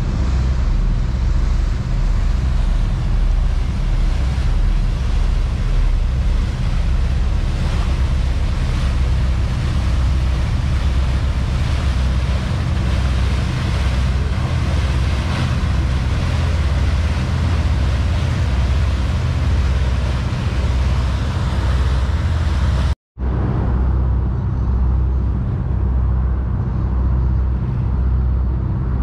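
A tour boat's engine running with a steady low hum, over the rush of water along the hull and wind on the microphone. The sound cuts out for a moment near the end and comes back duller.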